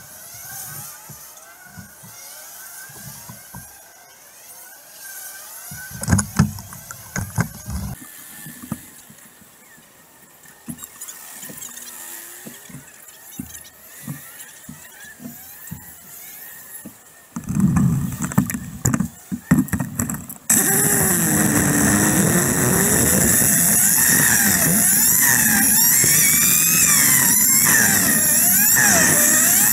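Two-stroke kart engine: after a quiet stretch with faint engines of passing karts and a few knocks, a loud choppy burst as the engine is started, then from about twenty seconds in the kart engine running hard on track, its pitch rising and falling again and again with the throttle.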